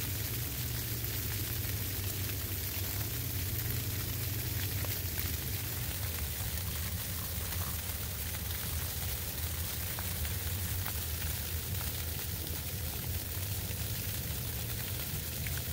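Rain and sleet falling on a tarp shelter: a steady hiss with a few faint ticks of drops.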